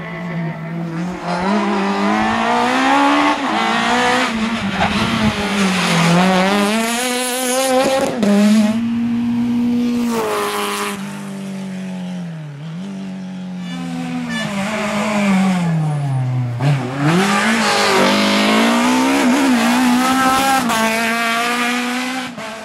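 Rally cars at full speed, engines revving hard and falling back at each gear change, several cars passing one after another.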